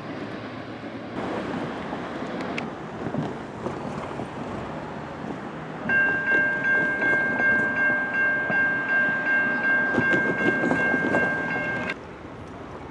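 Freight train rolling on the rails, then about halfway through a diesel locomotive horn, a GE Dash 9-44CW leading the train, sounds a steady chord of several notes for about six seconds and cuts off suddenly near the end.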